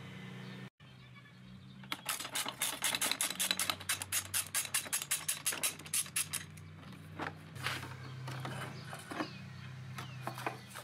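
Ratchet wrench with a Torx T40 bit clicking rapidly and evenly for about four seconds as a motorcycle crash bar bolt is backed out, followed by a few scattered knocks of the loosened metal crash bar being handled.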